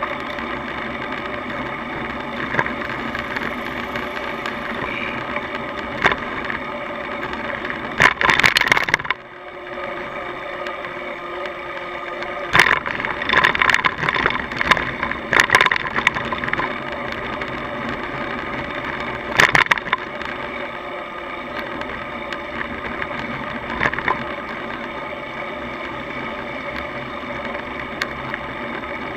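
Steady road and wind noise from riding, picked up by a bicycle-mounted camera. Loud clattering comes about eight seconds in, again in a cluster around thirteen to sixteen seconds, and once more near twenty seconds.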